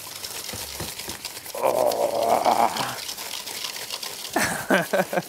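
Wire whisk beating softened butter and sugar in a stainless steel mixing bowl: quick strokes clattering against the metal. A person's wordless vocal sound about two seconds in, and voices again near the end.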